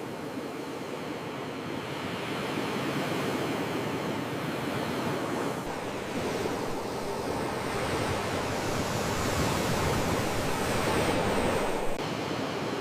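Sea waves washing ashore, a steady rush of surf that swells twice and eases, with some wind. Near the end the low rumble cuts off sharply, leaving a thinner hiss.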